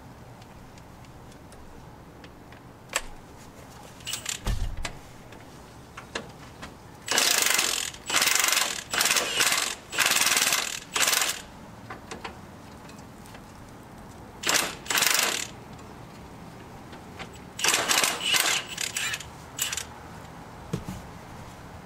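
Ratchet wrench with a long socket working on the 17 mm sway-bar bracket bolts: short bursts of rapid clicking, each about half a second, in three clusters from about a third of the way in. A few single knocks and clinks of tools on metal come before them.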